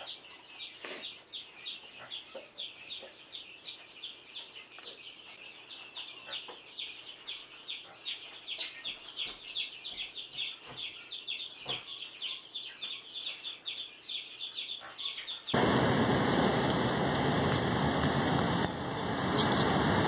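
Baby capybara chirping: a fast, steady run of short high chirps, several a second. About fifteen seconds in it cuts to a louder, steady rushing noise.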